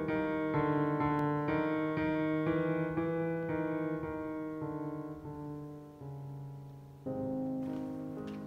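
Slow background piano music, notes and chords played about twice a second, dying away and then a new chord struck near the end.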